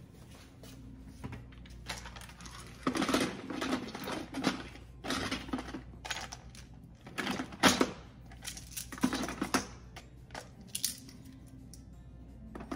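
Plastic supplement bottles clicking and clattering against each other and against a plastic basket as they are set in one by one. The knocks come irregularly and start about three seconds in.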